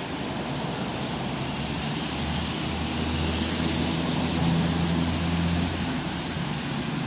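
Steady hiss of rain on a wet city street. A motor vehicle passes by, its engine hum and tyre hiss swelling about halfway through and fading near the end.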